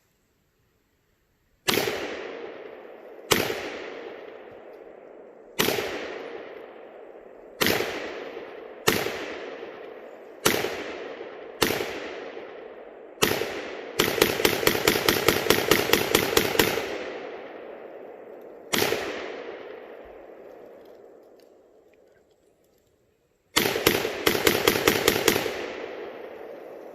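AR-15 rifle firing outdoors. Eight single shots come one to two seconds apart, each with a long echoing tail. Then a fast string of about fifteen shots, one more single shot, and after a pause a second, shorter fast string near the end.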